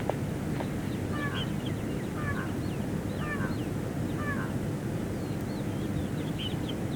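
Birds calling outdoors: one bird repeats the same short call four times about a second apart, with smaller high chirps from other birds, over a steady rush of wind or outdoor background noise.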